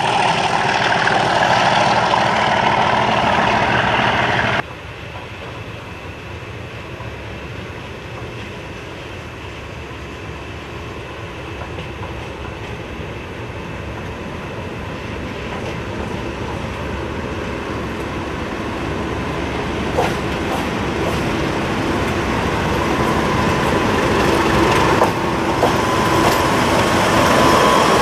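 A diesel locomotive running loudly, cut off suddenly about four seconds in. Then a British Rail Class 37 diesel locomotive (English Electric V12) with a train approaches, its rumble growing steadily louder until it is running close by at the end.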